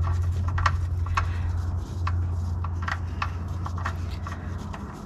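Light metal clicks and rubbing as a drain plug is threaded by hand back into a Duramax diesel pickup's oil pan, over a steady low hum.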